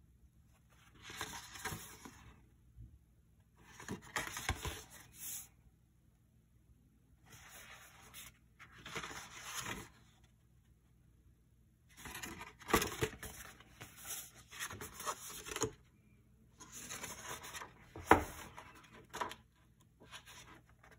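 Pages of a paperback comic book being handled, turned and riffled by hand: five bursts of paper rustling with short pauses between. A sharp paper snap near the end is the loudest sound.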